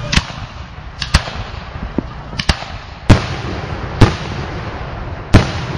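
Fireworks going off: about seven sharp bangs at irregular intervals, each trailing off in a short echo, the loudest three coming in the second half.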